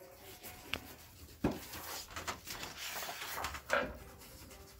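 Wax crayon being scribbled on paper in quick short strokes, a dry scratching that comes in a dense run of strokes after about a second and a half. There is a soft thump and rustle as the paper sheet is turned on the table at the start of the run.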